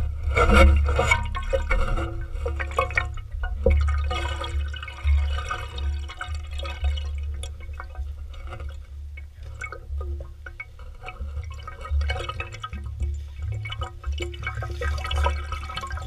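Water running and splashing, with a steady low hum and a fluctuating rumble underneath.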